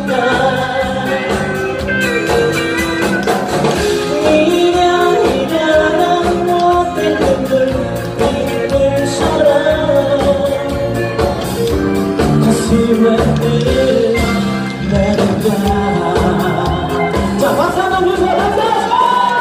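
Live band music: a man singing a ballad over acoustic guitar and electric bass, with a rising, held note near the end.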